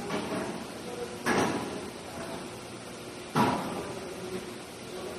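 Two loud bangs about two seconds apart, each dying away in a long echo through a large warehouse hall, over steady background noise.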